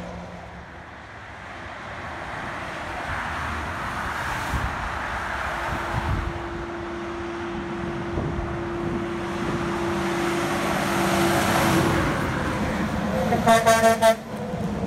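Steady highway traffic passing below, then near the end a semi truck's air horn gives four quick blasts.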